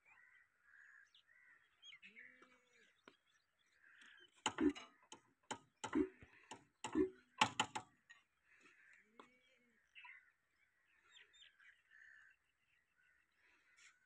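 About eight sharp knocks and clicks in a cluster over the middle few seconds, as hands work on an old International stationary engine that is not yet running. Birds chirp throughout, with a few short bird calls.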